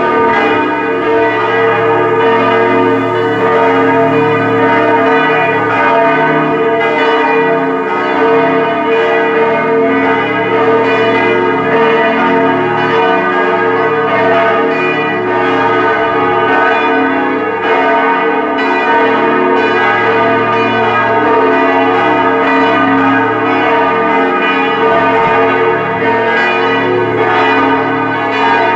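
Full peal of the church's four Grassmayr bells, tuned B♭, E♭, G♭ and A♭, ringing together as a call to mass. Their strokes overlap into a loud, continuous ringing.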